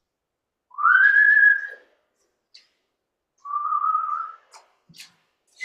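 A person whistling two held notes: the first slides up and holds, the second is lower and steady. A few faint clicks come between them.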